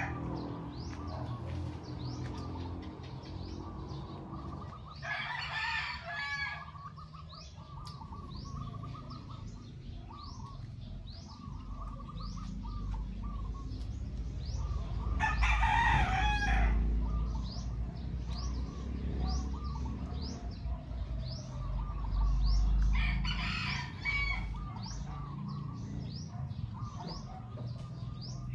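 A rooster crowing three times, each crow about a second and a half long, with birds chirping steadily behind.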